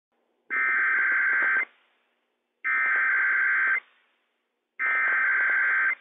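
Emergency Alert System SAME header sent over NOAA Weather Radio for a Required Weekly Test. It is three identical bursts of buzzy two-tone digital data warble, each about a second long, spaced about two seconds apart.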